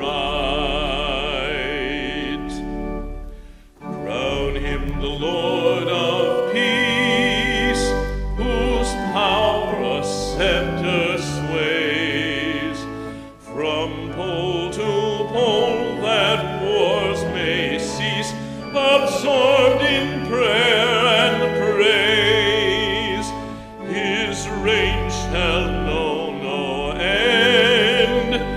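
Sacred music in a classical style: a singing voice with a wide vibrato over sustained instrumental accompaniment, phrased with short breaks between lines.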